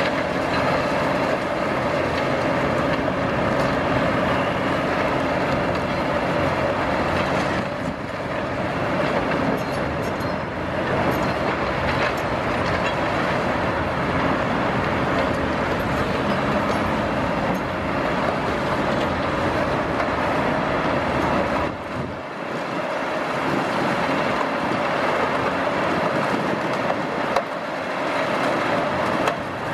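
CAT 349E tracked excavator working under load, its diesel engine and hydraulics running steadily while the demolition crusher on its arm bites and breaks reinforced concrete, with continuous crunching and scraping of concrete and rebar. The deep engine rumble thins out about two-thirds of the way through.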